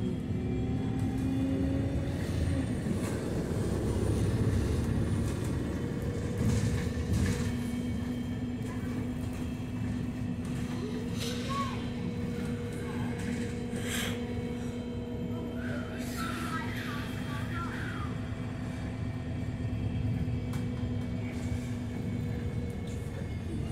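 Inside an Alexander Dennis Enviro200 MMC single-deck bus with a Voith automatic gearbox on the move: steady engine and drivetrain hum over road rumble. There is a sharp knock a little past halfway.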